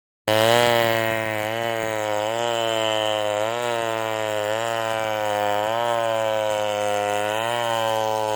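Chainsaw running at high speed, cutting into hardwood, starting abruptly. Its pitch dips and recovers about once a second as the chain bites.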